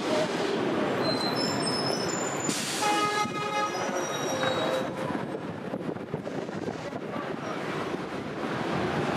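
Steady downtown street noise, with a high squeal that steps upward and then a short horn-like tone about three seconds in.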